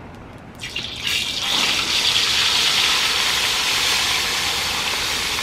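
Whole tilapia lowered into a pan of hot oil, the oil crackling, then breaking into a steady frying sizzle about a second in.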